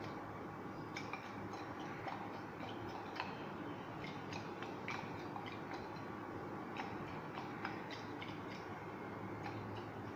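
Scattered light clicks and taps of test tubes and glassware being handled on a lab bench, irregular and several a second at times, over a steady low room hum.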